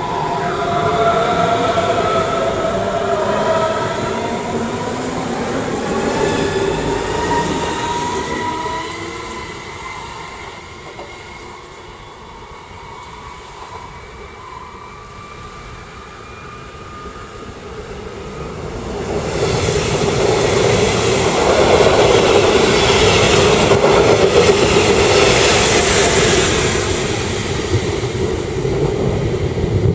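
Stuttgart S-Bahn electric multiple unit pulling away, its traction motors giving several rising whines as it picks up speed, fading out over about ten seconds. After a quieter stretch, a locomotive-hauled electric train runs past loudly from about two-thirds of the way in, with a heavy rolling rumble of wheels on rail and a brief high squeal near the end.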